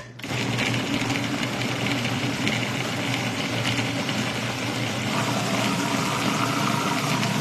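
Electric food processor running steadily, its motor whirring and blades chopping vegetables, switched on about a quarter second in.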